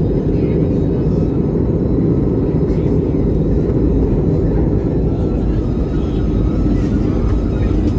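Steady, even roar inside the cabin of an Airbus A320neo in flight: engine and airflow noise, deep and unchanging.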